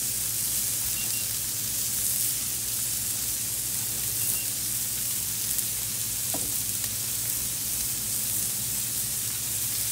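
Steaks searing on a hot Blackstone flat-top griddle: a steady sizzling hiss.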